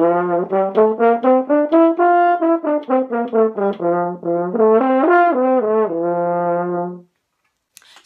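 French horn, played with the right hand placed in the bell, running a quick scale: separate notes rising about an octave and coming back down, then a few notes up and down again ending on a held low note that stops about seven seconds in.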